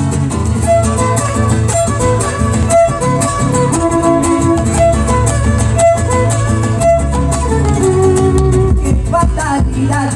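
Live folk band playing an instrumental passage: acoustic guitars and a large wooden bass drum keep a steady beat under a held melody line.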